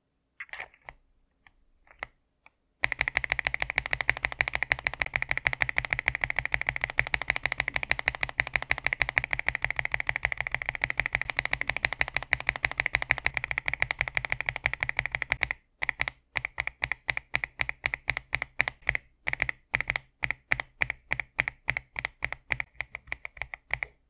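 TM680 mechanical keyboard with KTT Strawberry linear switches being typed on. A few single keystrokes come first, then about twelve seconds of fast, continuous typing. After a brief pause come slower, evenly spaced keystrokes, about four a second.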